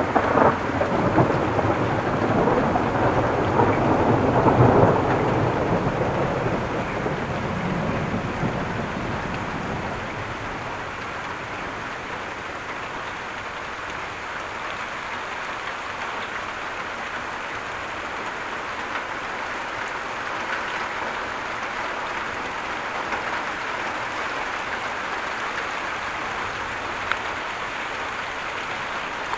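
Thunder rumbling over steady heavy rain: the rumble dies away over the first ten seconds or so, leaving the even hiss of downpour.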